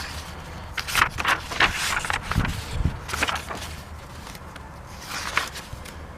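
A series of irregular rustles and light knocks, about half a second apart in the first few seconds and once more near the end, over a steady low rumble.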